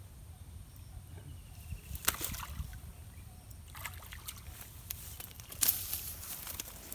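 Short sharp splashes and rustles as a hooked climbing perch is jerked out of the pond and onto the grassy bank. The loudest pair of sharp sounds comes a little before the end.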